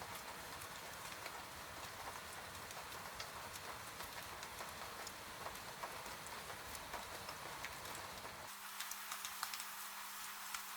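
Steady rain with many separate drops pattering and ticking. About eight seconds in, the low rumble under the rain cuts out suddenly and a faint steady hum comes in, while the drop ticks carry on.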